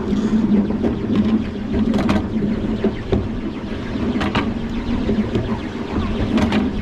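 Miniature railway train running along its narrow track, a steady rumble of the wheels on the rails with a few sharp clicks scattered through it.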